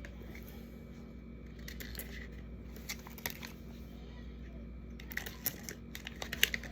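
Faint crinkling and light clicks from sticker sheets and their plastic packaging being handled, with the clicks coming more often near the end.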